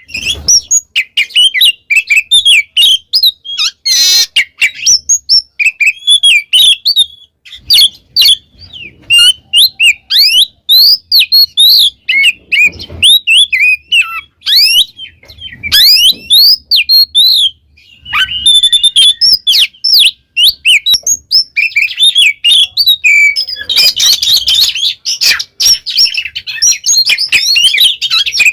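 Oriental magpie-robin singing loudly and without let-up: a fast, varied stream of sliding whistles and chirps with only brief pauses, thickening into a dense, harsher passage near the end.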